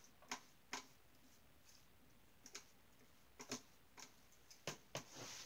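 About half a dozen faint, separate taps and clicks from brush work at the easel and palette, against a quiet room.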